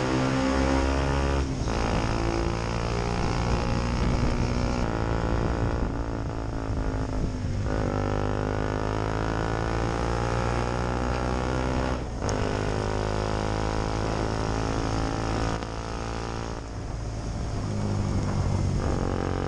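2013 KTM Duke 125's single-cylinder four-stroke engine pulling a moving motorcycle through the gears. Its pitch rises between several short breaks at the gear changes.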